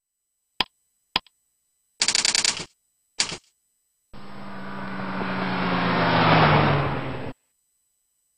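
Sound effects for an animated logo intro: two short clicks, a fast rattling burst and a shorter one, then a rush of noise with a low hum that swells for about three seconds and cuts off suddenly.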